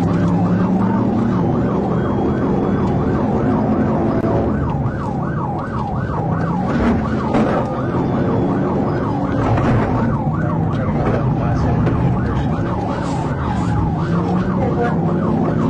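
Emergency vehicle siren in a fast yelp, its pitch sweeping up and down about three times a second, over a lower wavering tone.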